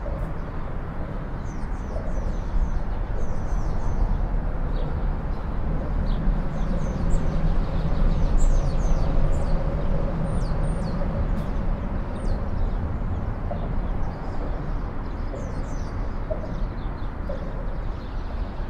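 Small birds chirping throughout, short quick calls, over a steady low rumble of city traffic that swells midway.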